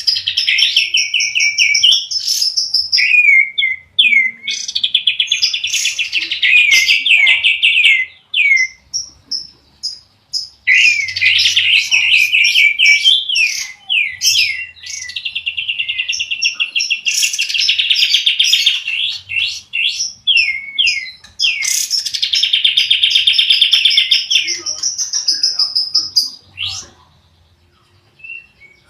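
Songbirds singing: a domestic canary and a kapas tembak, with long rapid rolling trills and quick chirping phrases, in bursts broken by two short pauses.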